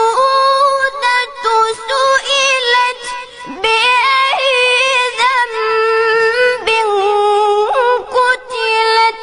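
Male Quran reciter's voice holding long, high melodic notes, with ornamented turns and a few short breaks, in the drawn-out, ornamented style of tajweed recitation.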